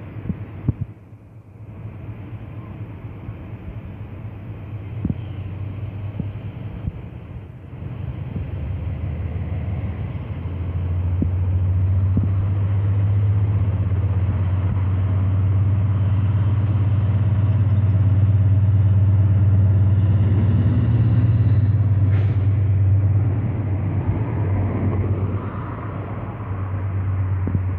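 Freightliner Class 70 diesel locomotive running light engine, its GE PowerHaul V16 diesel giving a steady low drone. The drone builds as the locomotive approaches, is loudest as it passes beneath about halfway through, then eases off.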